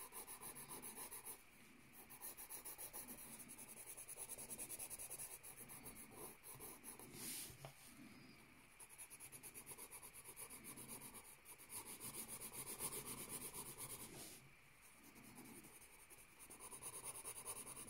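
Pencil shading on notebook paper: faint, rapid back-and-forth strokes of graphite, in a few spells broken by short pauses.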